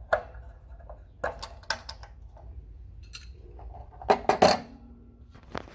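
Metal tools and pipe fittings clinking and knocking against each other, a few scattered strikes with the loudest pair about four seconds in.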